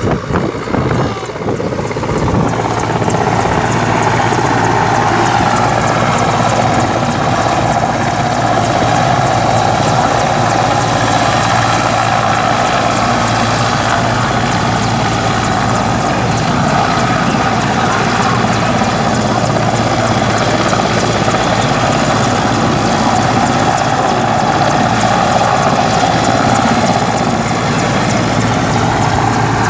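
Helicopter rotor and engine running steadily and loudly, close by.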